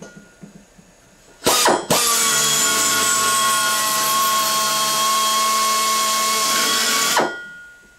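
Pneumatic drill spinning a high-speed steel trimmer to cut the excess valve-guide liner off the end of a guide in a cylinder head. A short burst about a second and a half in, then a steady whine for about five seconds that winds down near the end.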